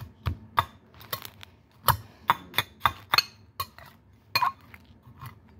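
Metal butter knife clinking and scraping against a dish while mashing and mixing cookie crumbs with milk, in irregular sharp clinks about two a second.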